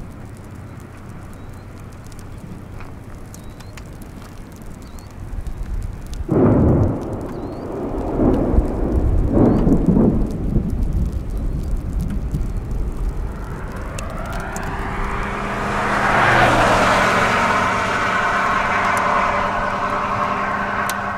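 Severe thunderstorm with low rumbling and strong wind noise. Two loud surges come about six and nine seconds in. Then a rushing sound rises and holds, with several steady tones in it.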